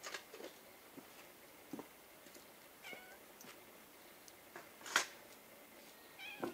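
A domestic cat meowing briefly twice, about three seconds in and again near the end, among scattered light clicks and knocks. The loudest of these is a sharp knock about five seconds in.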